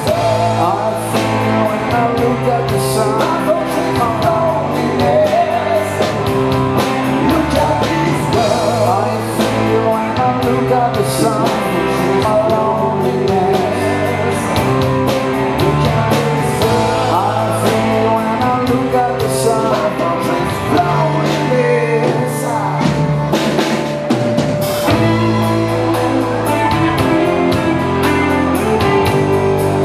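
A live rock band playing a song with electric guitars and a drum kit, with some singing.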